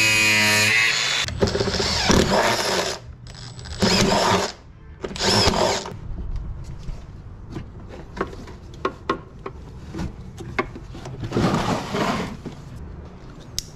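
Cordless angle grinder running with a steady whine as it grinds metal, stopping about a second in. Then several short bursts of noise and scattered clicks as a ratchet strap and its metal hooks are handled.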